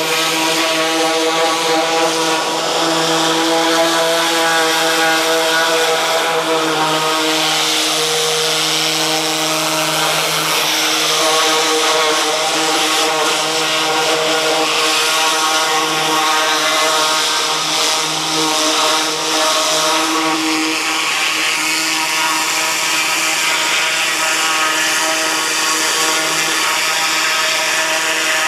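Hot-water pressure washer running steadily on its 14 HP Kohler Command Pro gasoline engine, with the high-pressure spray hissing as it hits the steel tracks and undercarriage of an excavator.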